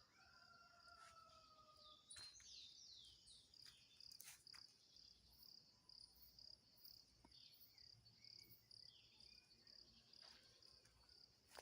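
Faint outdoor rural ambience: an insect trilling steadily in rapid pulses, with scattered bird calls, a held whistle in the first second or so and quick sweeping chirps a couple of seconds in.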